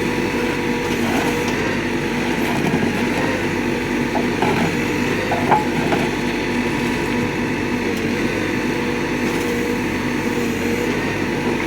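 Backhoe loader's diesel engine running steadily under hydraulic load while a concrete pulverizer works, with a few sharp cracks of breaking concrete near the middle.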